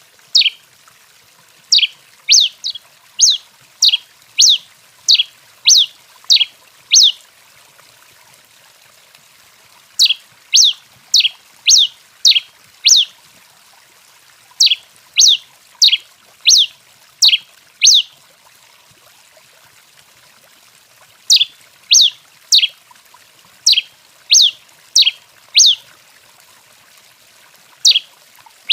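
Tico-tico-rei finch calling: a series of loud, sharp notes that slide down in pitch, about two a second, in bouts of several seconds broken by short pauses.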